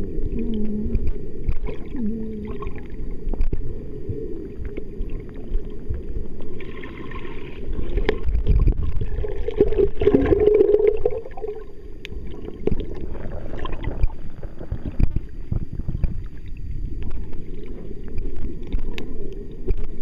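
Underwater sound of a hot-spring pool picked up by a submerged waterproof camera: a muffled low rumble of moving water with gurgling and scattered knocks.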